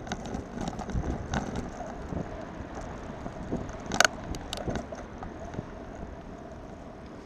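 Bicycle ridden over brick paving: a steady rumble with irregular rattling clicks, wind buffeting the microphone, and one sharp clack about four seconds in.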